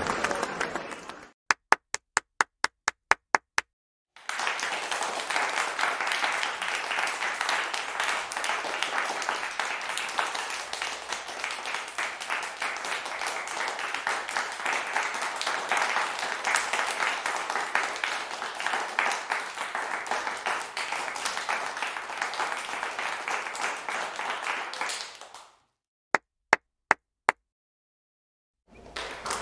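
Hand clapping: a tail of applause fades out, then one person claps about nine times at roughly four claps a second. Dense crowd applause follows for about twenty seconds and stops abruptly, then a short run of about five single claps.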